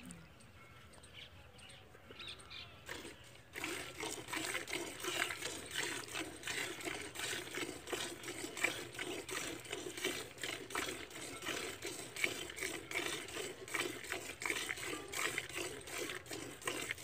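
Jets of milk squirting rhythmically into a steel bucket as a cow is milked by hand, the hands alternating in quick strokes. The squirting grows much louder about three and a half seconds in.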